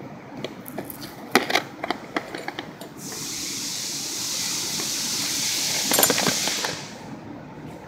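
A few sharp clicks and knocks, then a steady pressurised spray hissing for about four seconds, with a quick run of clicks near its end.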